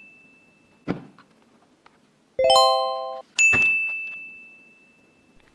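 A high bell-like ding rings out, then a single click. A lower chime sounds briefly and cuts off abruptly, then a second high ding rings out.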